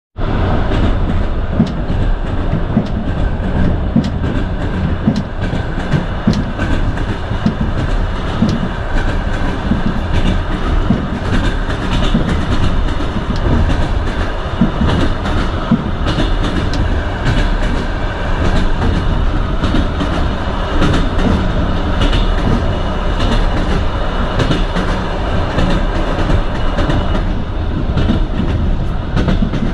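Moving train: a steady low rumble from the railway wagon with the clickety-clack of its wheels knocking over rail joints, with short clicks throughout.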